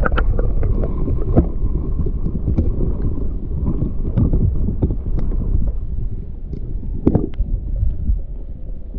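Wind buffeting the microphone: a loud, dense low rumble with scattered clicks and knocks, over the rush of the creek.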